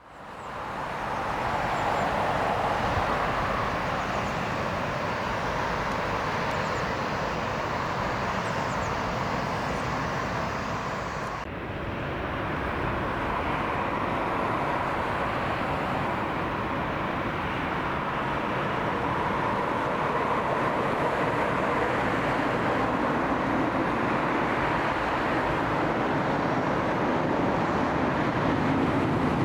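Jet airliner engines running, a steady noise that fades in over the first second and changes abruptly about eleven seconds in, where the hiss on top drops away.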